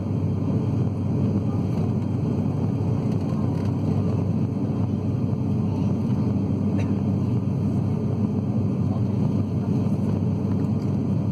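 Steady cabin noise of a turboprop airliner climbing after takeoff: an even, low engine and airflow sound that does not change.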